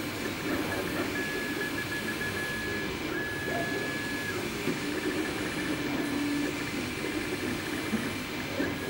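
MakerBot 3D printer running a print: a steady whirr with stepper-motor tones that change pitch as the print head moves, including a high whine from about one to four and a half seconds in.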